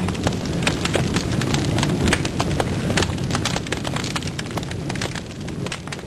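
Fire burning through dry twigs and brushwood, crackling and snapping densely and irregularly over a low roar of flame; it fades out near the end.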